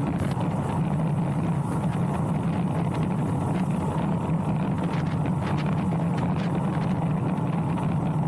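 Steady rush of wind and tyre noise from a road bike descending at speed, with a constant low rumble.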